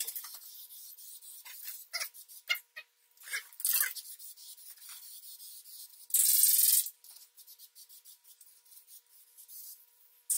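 Aerosol spray paint can hissing in short bursts, the loudest lasting under a second about six seconds in and a shorter one near four seconds, with scattered light clicks and rubbing between.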